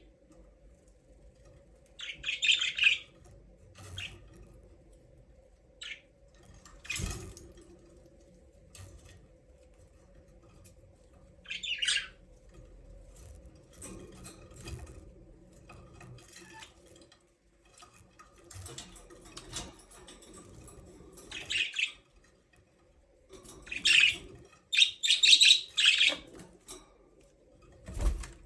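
Budgerigars chirping in short, scattered bursts, busiest near the end, with now and then a wing flutter or knock, over a faint steady hum.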